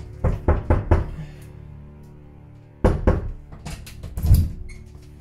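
Knocking on a door: four quick raps in the first second, then a second, longer round of knocks about three seconds in, over background music.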